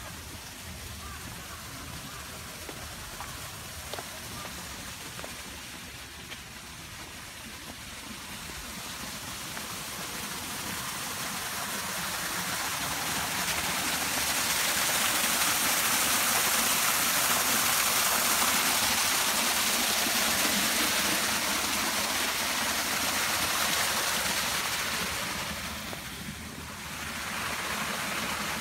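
Running water of a shallow garden stream, a steady rushing hiss that grows louder over the first half and holds there, dipping briefly near the end.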